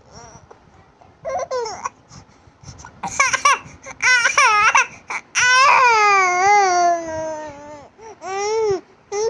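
Baby boy vocalizing in high-pitched babbles and cries: a few short rising-and-falling calls, then a long wavering wail starting about halfway through, and a shorter call near the end.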